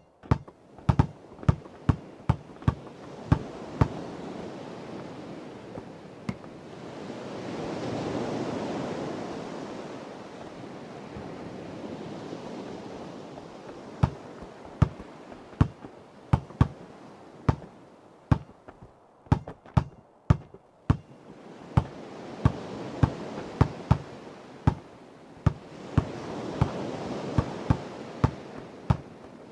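A basketball being dribbled, sharp bounces about two a second that stop about four seconds in and start again about halfway through. Under them, sea waves wash in and out, swelling twice.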